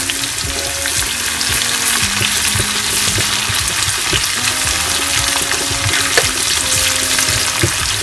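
Chopped onions sizzling steadily in hot oil for a tadka, stirred with a wooden spoon in a stainless steel saucepan, with small crackles and scrapes through the frying.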